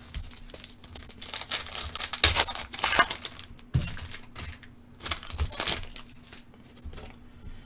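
A football trading card pack being torn open, its foil wrapper crinkling in several bursts over the first few seconds and again briefly later, with light clicks of packs and cards being handled.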